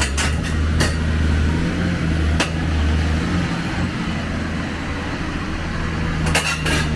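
Heavy diesel engine running steadily at a low pitch, with a few sharp metallic clanks and knocks over it, several of them close together near the end.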